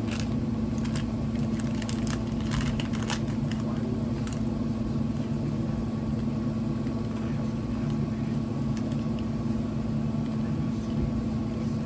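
Steady low hum with a constant drone, and a scattering of short crisp crackles and clicks during the first four seconds or so.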